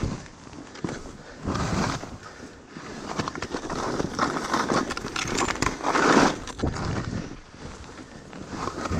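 Skis turning through soft snow: a series of hissing swooshes that swell and fade with each turn, the loudest about six seconds in.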